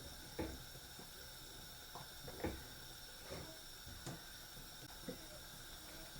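Thick ogbono and okra soup simmering in a pot on a gas burner: a steady hiss with about six soft pops of bursting bubbles.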